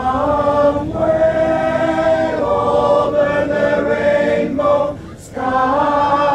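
A group of voices singing together in slow, long held notes, with a short pause for breath about five seconds in.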